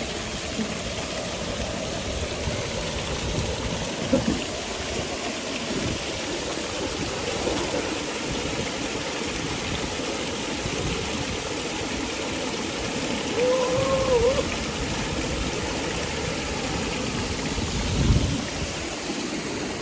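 Steady rushing of a waterfall, with two short knocks, one about four seconds in and one near the end, and a brief pitched sound about fourteen seconds in.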